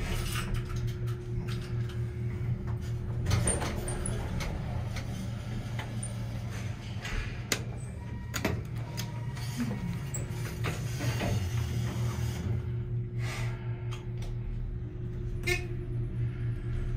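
Inside a Dover Impulse traction elevator car: a steady low hum, with the car's doors sliding open and later closing again, and a few knocks and clicks as the door-close button is pressed.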